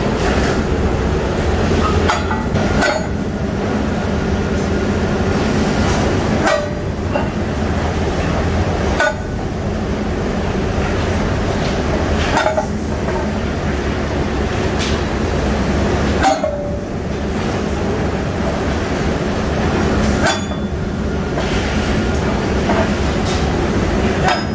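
Sledgehammer blows on steel angle bars, about eight metallic clanks a few seconds apart, each with a short ring, over the steady rumble of the rolling mill.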